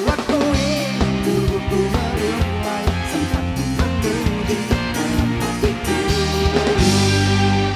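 Live band playing a pop song, with drums keeping a steady beat under a melody line.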